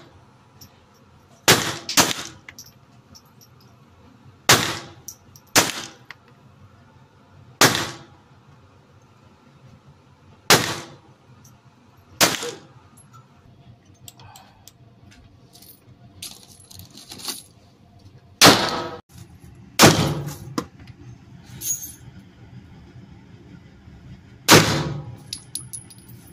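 Handgun shots fired one at a time at a shooting range, from a CZ .22 LR pistol and a Glock 9mm: about a dozen sharp reports, one to three seconds apart, each with a brief echo. A pause of several seconds near the middle holds only faint metallic clinks.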